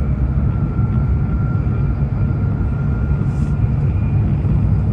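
Cabin running noise of an E2 series Shinkansen on the move: a steady low rumble with a thin, steady whine above it.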